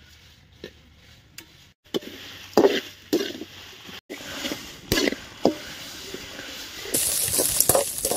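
Whole spices and dried red chillies being dry-roasted in a pan and stirred with a ladle: scraping and knocking strokes from about two seconds in, with a steady sizzling hiss coming up near the end.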